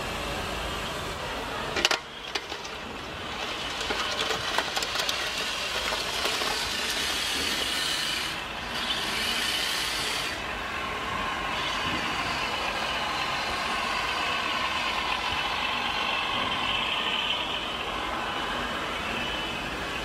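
Radio-controlled model construction machines working: a steady noise of small electric motors and gearboxes with scraping and clicks, and one sharp knock about two seconds in.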